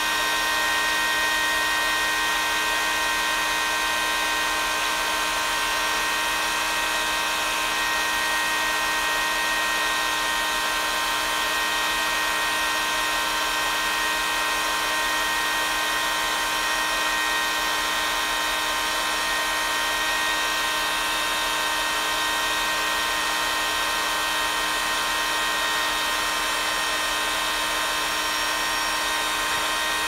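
Panasonic hair dryer running steadily: a motor whine of several fixed tones over the hiss of blowing air.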